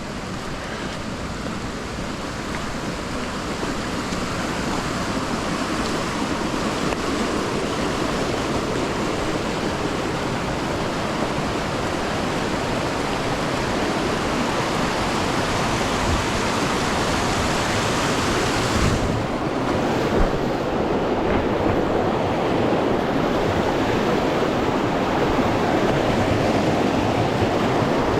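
Steady rushing of river water, a dense even roar that slowly grows louder; about two-thirds of the way in its hiss thins out suddenly.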